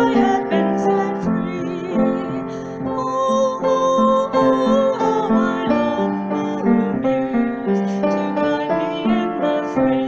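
Music: a piano playing the accompaniment of a song, with no clear singing.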